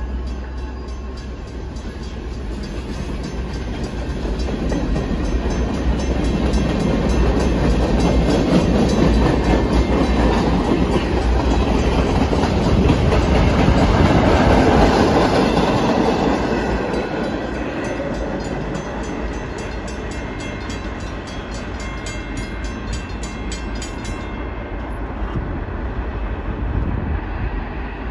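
BNSF local freight train passing at close range: its diesel locomotives and then its cars roll by with wheels clacking over the rails. The sound swells to its loudest about halfway through, then fades as the train moves away.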